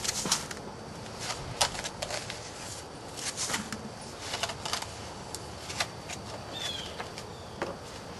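Pieces of heat-treated chert clicking and clinking against each other as they are picked out of the sand in a turkey roaster: scattered, irregular light knocks of stone on stone.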